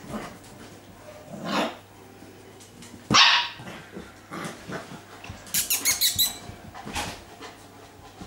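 Six-week-old puppies barking and yipping: a short rising yelp, one loud bark about three seconds in, then a quick run of high yips.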